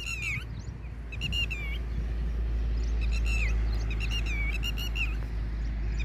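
Red-wattled lapwings giving shrill alarm calls in four or five short runs of quick notes: a nesting pair's alarm at intruders near their eggs.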